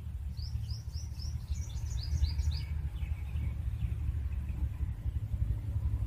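Nestling birds chirping: a quick run of about ten short, high chirps, then fainter, lower chirps that trail off. A steady low rumble runs underneath.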